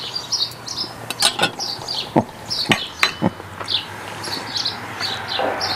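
A small bird chirping over and over, with several sharp clinks and taps of cutlery on a wooden cutting board in the first few seconds.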